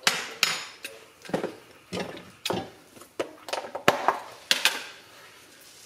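An irregular series of about a dozen sharp clicks and knocks of kitchenware being handled at the stove, dying away near the end.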